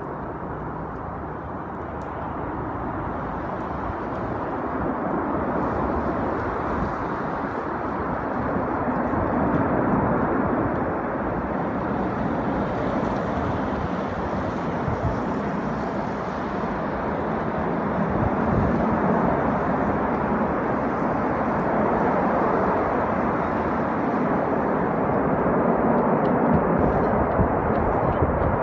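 Distant rumble of a formation of JAS 39 Gripen fighter jets flying over, a steady noise that slowly rises and falls and is loudest near the end.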